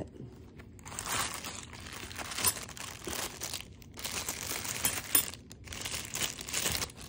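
Clear plastic packaging crinkling and rustling in uneven bursts as metal candle holder parts are unwrapped by hand. A couple of sharp clicks stand out, about two and a half and five seconds in.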